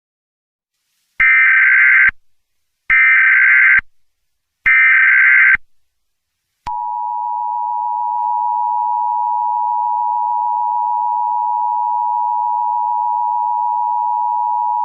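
Emergency Alert System header: three loud one-second bursts of warbling SAME data tones, then about 6.5 s in a long, steady EAS attention tone.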